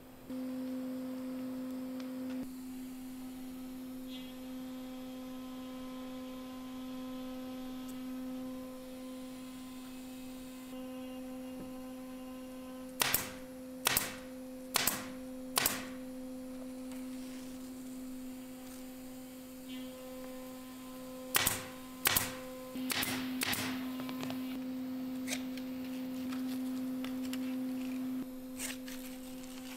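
Pneumatic nailer firing: four sharp shots about a second apart, then a second, quicker cluster of shots a few seconds later, over a steady hum.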